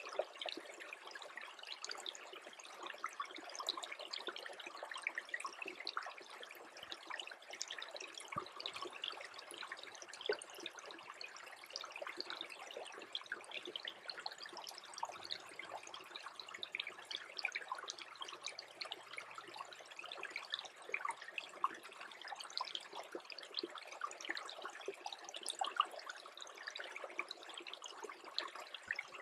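Small freezing creek trickling steadily, with a dense patter of tiny drips and clicks.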